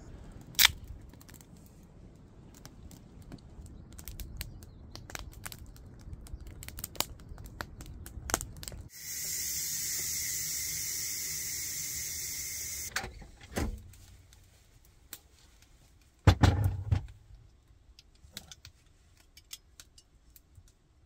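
Light clicks and crackles as a kindling fire is lit. Then a steady hiss of steam venting from an electric pressure cooker's release valve for about four seconds, which cuts off suddenly. A few loud knocks follow.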